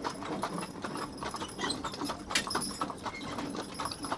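A team of mules walking as they pull a wagon, their hooves clip-clopping in an irregular run of clicks.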